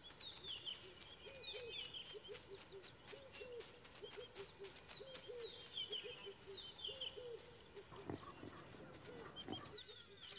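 Faint bush ambience of bird calls: short descending high chirps and low hooting notes repeating every second or so, with scattered light clicks. The calls stop near the end.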